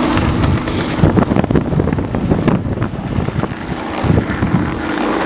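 Skis sliding and scraping over packed snow, with wind rushing over the microphone. A steady low hum is heard at the start and again near the end.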